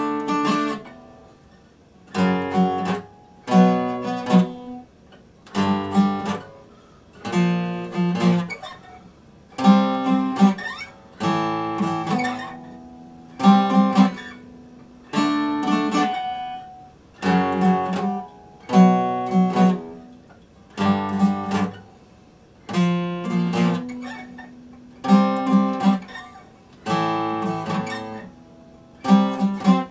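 Epiphone acoustic guitar strummed in short groups of chords, a new group about every second and a half to two seconds, each one ringing down in the short gap before the next.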